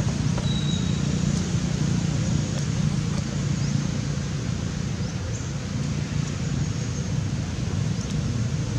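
Steady low outdoor background rumble, with a few faint brief high chirps.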